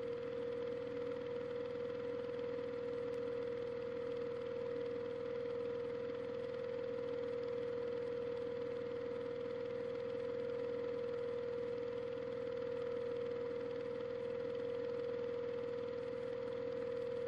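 Washing machine running, its motor giving a steady whine that rises slightly at the start and then holds level over a constant churning hiss.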